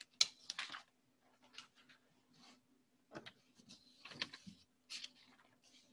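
Sheets of notepaper being moved and shuffled on a desk: a string of short, faint rustles and taps over a steady low hum.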